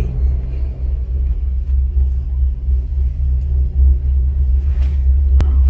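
Loud, unsteady low rumble inside a moving gondola cabin riding the cable, with one sharp click near the end.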